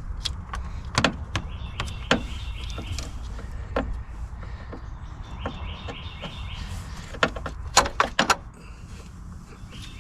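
Irregular metallic clinks and taps of a wrench working at the ICP sensor on a 6.0 Power Stroke diesel engine, with a quick run of sharp clicks about three-quarters of the way through; the wrench keeps spreading on the sensor.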